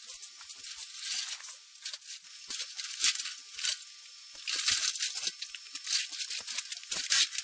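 Irregular rattling, clattering and scraping of workshop items being shifted about, with several louder clatters.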